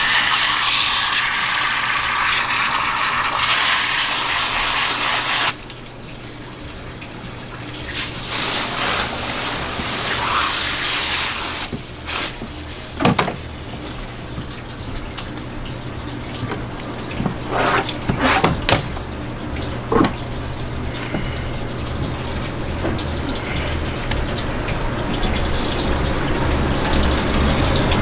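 Water jetting from a hose spray gun onto a gutted yellowtail on a cutting board, a loud steady hiss that cuts off suddenly about five seconds in and comes back for a few seconds. Then a few sharp wet knocks as the fish is handled on the board, over softer running water.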